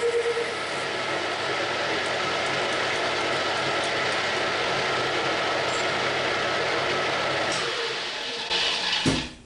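Geared-head metal lathe running steadily, its headstock gears whirring. A steady tone drops out about half a second in. Near the end the machine runs down and stops with a single sharp knock.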